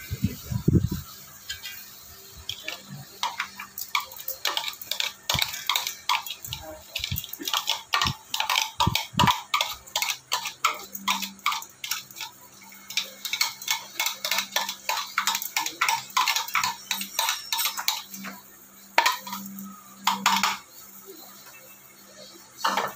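Metal spoon clinking and scraping against a stainless steel bowl while scooping chopped chili sauce into a plastic jar: a quick run of small clicks several times a second, with a few louder knocks near the end.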